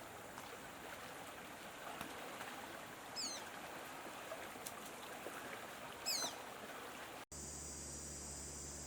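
Outdoor ambience with a steady wash of water-like noise, broken twice by a short falling bird whistle about three seconds apart. About seven seconds in it cuts abruptly to a steady high insect drone over a low hum.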